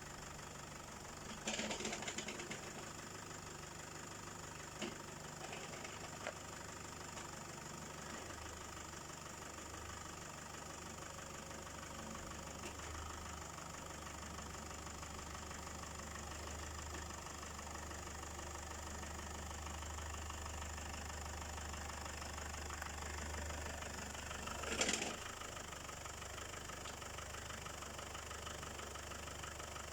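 Engine idling steadily, with a short clatter about a second and a half in and a sharper knock near the end.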